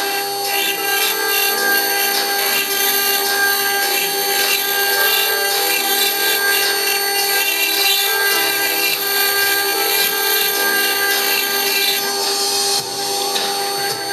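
A 4-axis CNC router running steadily as it engraves a workpiece held on its rotary axis. Several constant whining tones sit over a grinding hiss, with a brief dip near the end.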